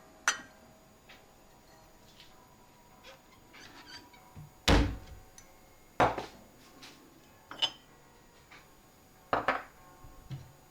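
A handful of separate thuds and knocks, about five in all, the loudest a little before halfway, with quiet room tone between.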